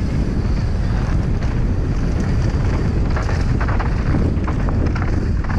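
Wind buffeting the camera microphone, a heavy steady rumble, while a mountain bike rolls down a dry dirt trail, with tyre noise and small rattles over the rough ground.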